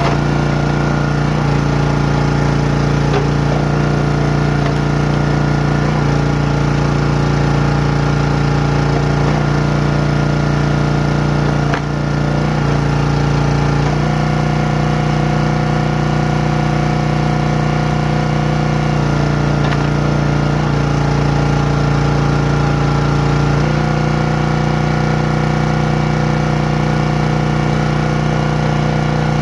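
Small gas engine of a Champion 27-ton log splitter running steadily. Its note shifts every few seconds as the hydraulic ram is worked through a large round and let off.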